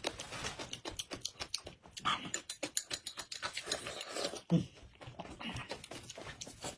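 Eating sounds: slurping porridge from a small glass bowl and chewing crunchy cucumber strips, a run of quick wet clicks and crunches.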